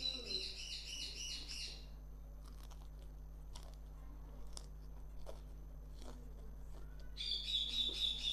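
A bird chirping in two quick rapid-fire bursts of high notes, one at the start and one near the end. Between them come faint clicks of chewing and eating by hand.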